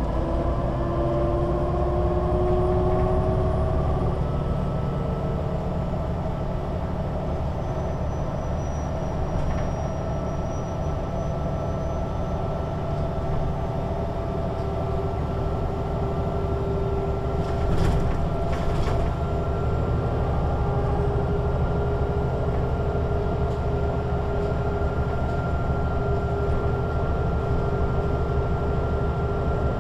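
MAN NG 313 articulated bus with a Voith automatic gearbox under way: a steady diesel rumble with whining drivetrain tones that rise for the first few seconds and then hold steady. Two sharp knocks come a little past the halfway point.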